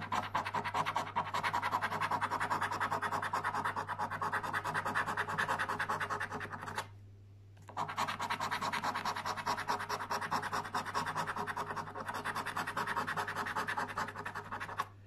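A coin scraping the scratch-off coating from a paper lottery scratchcard in rapid back-and-forth strokes, with a pause of about a second midway before the scratching resumes.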